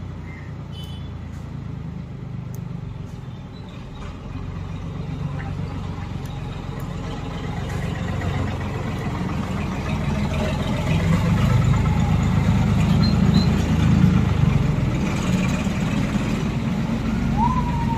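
Engine rumble from a passing vehicle, swelling about eight seconds in and loudest a few seconds later. Near the end a siren-like wail starts, rising sharply and then sliding slowly down.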